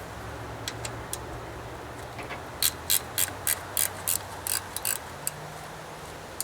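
A ratchet wrench clicking in a quick run of about nine sharp strokes, roughly three a second, as it works nuts loose on the air cleaner stack of a 1946 John Deere AR, with a few scattered ticks before and a steady low hum underneath.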